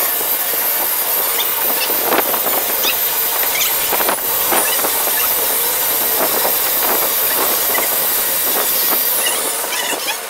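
Electric angle grinder with a sanding disc running steadily on a fiberglass boat hull: a loud, hissing whine with a few squealing tones and occasional knocks. The high whine falls away near the end as the tool winds down.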